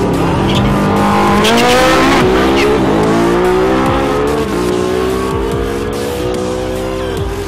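Porsche 918 Spyder's V8 accelerating hard down a drag strip alongside a motorcycle. The engine note climbs in pitch, drops back at each upshift, then climbs again, growing a little fainter as they pull away.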